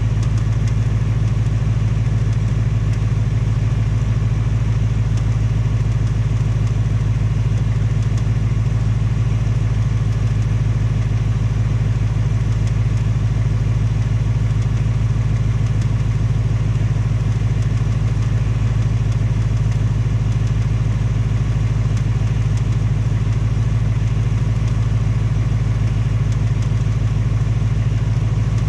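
2018 Mustang GT's 5.0 L Coyote V8 idling steadily, with the tapping/knocking that owners call the "BBQ tick". The owner takes it for a fault in this replacement engine, which has only 1,200 miles on it.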